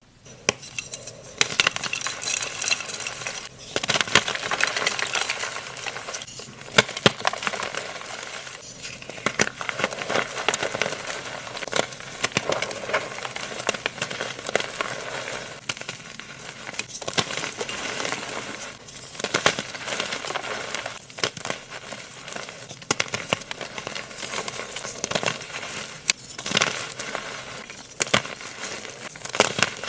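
Gritty crackling and scraping with many sharp clicks, as concrete is mixed.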